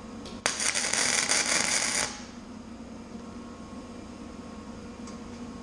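Flux-core wire-feed welder laying a short tack weld: a dense crackling hiss that starts abruptly about half a second in and cuts off about a second and a half later.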